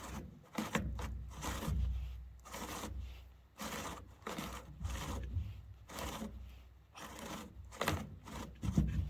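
Saw chain scraping as it is dragged by hand along a chainsaw bar in a series of irregular strokes, set very tight, over a low rumble.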